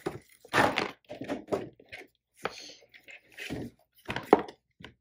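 A plastic zip pouch and picture books being handled at a bookshelf: irregular rustles and knocks as a child pulls the pouch out from between the books, the sharpest knock about four seconds in.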